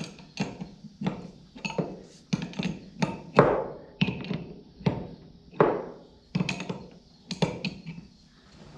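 Metal tool knocks and clanks from an 11/16 wrench working a hydraulic fitting on a tractor implement's cylinder: a run of sharp, irregular knocks, about two a second, each ringing briefly.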